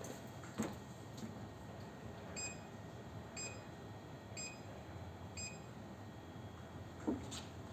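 Mi Walking Pad R1 Pro treadmill beeping four times, short electronic beeps about a second apart, over a faint steady low running noise. A knock comes about half a second in and another near the end.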